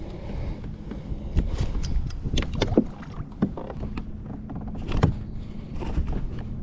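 Scattered knocks, taps and clicks of a fish being handled and unhooked in a kayak, over a low steady rumble.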